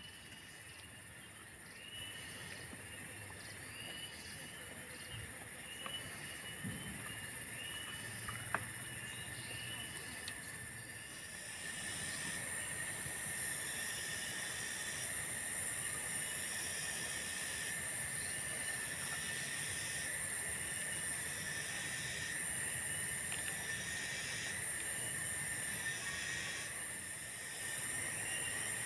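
Cicadas buzzing high in the forest, growing louder about twelve seconds in and then pulsing on and off about every two seconds, over a steady thin insect whine and a faint short chirp repeating in the first half.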